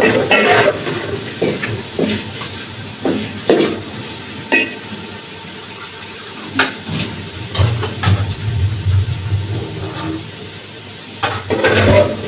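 A metal ladle scraping and knocking against a large aluminium pot as frying vegetables are stirred, in irregular clinks over a soft sizzle.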